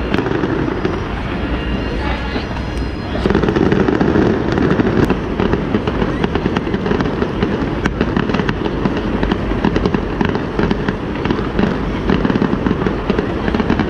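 Fireworks display going off: a continuous run of bangs and crackles that grows louder and denser about three seconds in.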